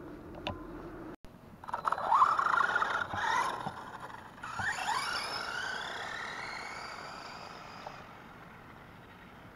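Losi XXX-T electric RC truck's motor and drivetrain whining as it accelerates hard: a loud wavering whine, then a second whine that climbs steeply in pitch and fades slowly as the truck speeds away.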